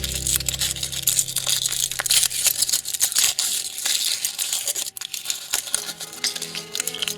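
Foil wrapper of a surprise egg crinkling and tearing while it is being unwrapped, full of small irregular crackles and clicks. The background music fades out in the first second.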